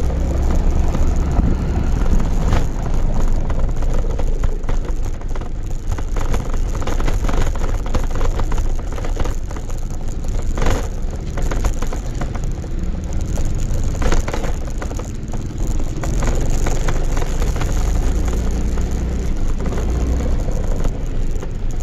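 Motor scooter riding over a rough dirt lane, heard through a phone clamped in a mount on the scooter: the engine runs under a constant shaking rattle from the scooter's heavy vibration, with three harder knocks from bumps.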